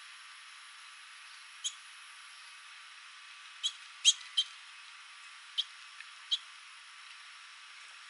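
House finches giving short, sharp chirp call notes: six quick chirps at uneven intervals, three of them close together in the middle, over a steady hiss.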